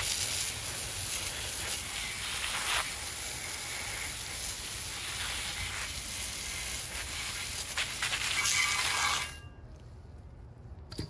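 Garden hose spray nozzle hissing steadily as water is sprayed into a post hole, soaking the concrete mix around a pole sleeve. The spray cuts off sharply about nine seconds in.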